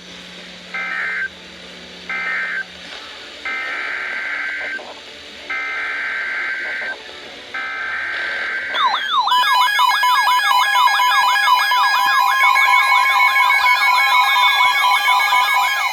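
Emergency Alert System digital data bursts: three short end-of-message bursts, then a new alert's three longer header bursts, each a harsh buzzy squeal. About nine seconds in, a loud siren-like alert tone begins, fast-warbling over steady tones, marking the start of the next warning.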